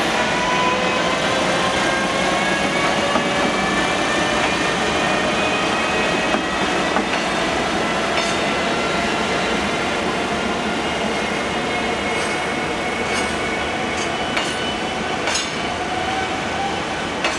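EF510 electric locomotive accelerating away with a container freight train: its inverter-driven traction motors whine in several tones that rise slowly in pitch, over the steady rumble of the wagons on the rails. From about twelve seconds in, wagon wheels click sharply over rail joints a few times.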